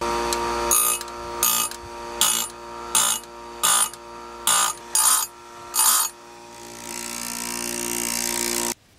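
Oregon electric bench chain grinder running with a steady motor hum while its wheel grinds the rounded-off cutters of a saw chain in about eight short grinding bursts. Near the end comes a longer grind that builds until the sound stops abruptly.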